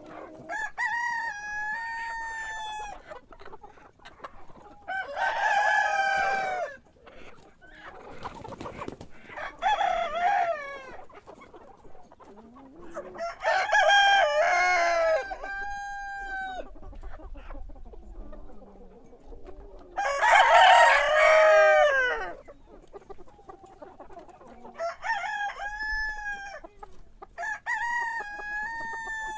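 Roosters crowing, about eight separate crows of differing pitch and loudness, the loudest about twenty seconds in.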